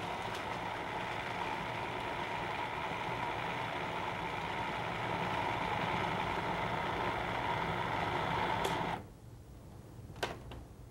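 Electric food processor running steadily as it grinds meat, switching off abruptly about nine seconds in. A couple of light knocks follow near the end.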